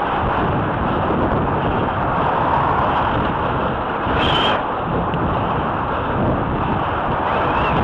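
Wind rushing over a cyclist's camera microphone while riding, with the engine and tyre noise of a car following close behind. About four seconds in, a brief high-pitched squeak.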